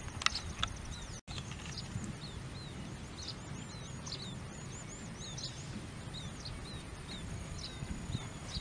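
Small birds chirping and calling repeatedly with short, slurred notes, over a steady low rumble of outdoor noise; the sound drops out for an instant about a second in.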